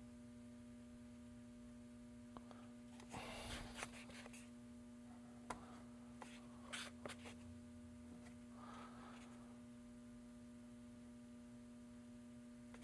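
Faint scraping and rustling of body filler being spread with a spreader on a plastic RC truck body, with a few small clicks, over a steady low hum.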